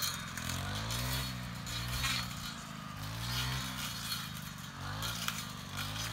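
A small gasoline engine revving up and down in repeated surges, about once a second, with scattered sharp crackles over it.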